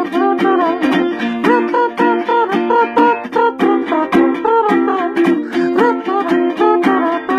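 Ukulele strummed in a quick, even rhythm, with a man's voice singing along in short, hiccuping eefing sounds rather than words.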